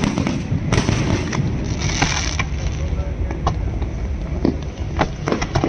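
Fireworks and firecrackers going off in irregular sharp bangs, with a spell of dense crackling about two seconds in and a quick run of cracks near the end.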